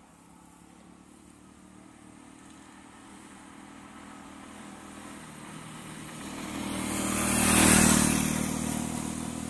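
A 150 cc single-cylinder motorcycle approaches along the road and passes close by. Its engine grows steadily louder to a peak about three-quarters of the way through, then fades as it moves away.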